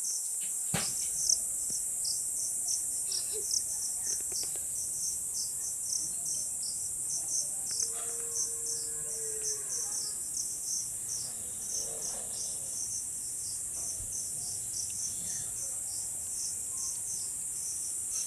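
Steady high-pitched chorus of insects, likely crickets, chirring continuously with an even, regular pulsing.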